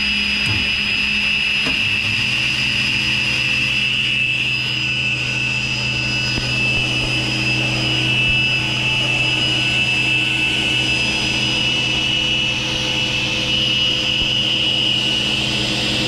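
Powermatic sliding table saw's blade running at full speed with a steady high whine, just after spinning up. About two seconds in a deeper steady hum joins as the motor switch is turned over from the star (Y) to the delta position.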